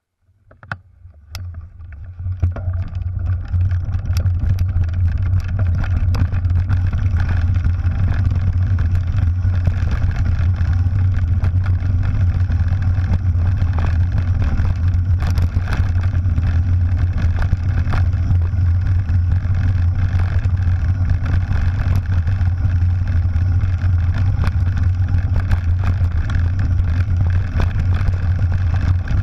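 Steady low wind rumble on a bike-mounted camera's microphone, with tyres crunching over loose gravel and scattered rattles and clicks from the mountain bike, building over the first few seconds as the bike picks up speed downhill.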